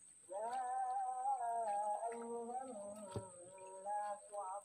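A voice humming a slow, wordless tune, with one sharp knock about three seconds in.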